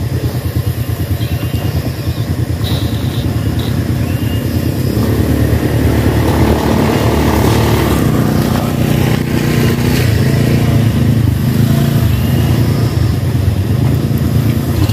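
Motor scooter engine running, growing louder about halfway through as the scooter rides past close by, over a steady low engine rumble.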